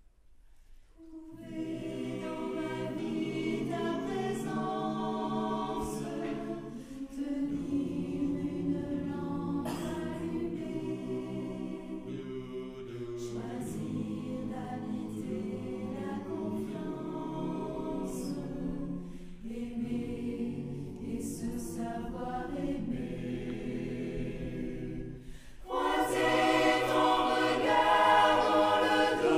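Mixed choir of women's and men's voices singing a French hymn a cappella, in a reverberant stone church. The voices come in about a second and a half in, pause briefly for breaths between phrases, and swell to a louder passage near the end.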